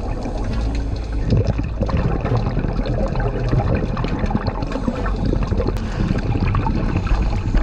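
Underwater sound of a scuba diver's breathing: bubbles from the regulator gurgling past the microphone over a steady low rumble, with many small crackling clicks.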